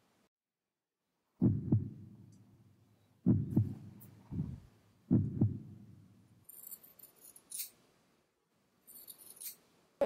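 Small scissors trimming the fur on a kitten's paw pads: first a few sudden low knocks with sharp clicks, mostly in pairs, as the paw is handled and the scissors are set, then quieter, crisp snips of the blades in the second half.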